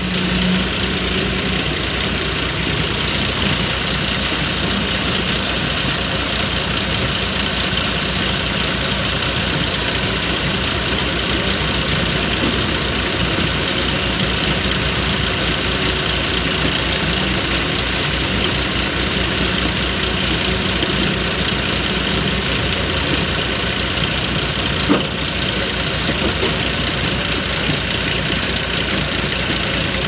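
JCB tracked excavator's diesel engine running steadily while the machine digs, with an even low throb. There is one short sharp knock about 25 seconds in.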